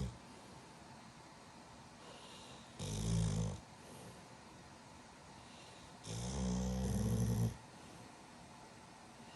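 Sleeping pit bull snoring hard: two loud snores about three seconds apart, the second longer, with quiet breathing between them.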